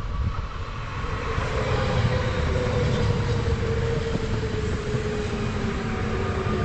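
Pesa Elf II electric multiple unit passing close by, its rumble growing over the first couple of seconds and then holding, with a whine that slowly falls in pitch as it goes past.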